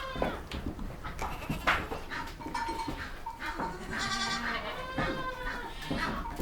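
Goats bleating: several pitched bleats, with a long quavering bleat about four seconds in. A sharp click sounds about a second and a half in.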